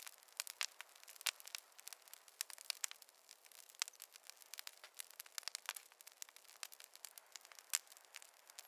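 Wood fire crackling: irregular sharp pops and snaps, several a second, over a faint hiss.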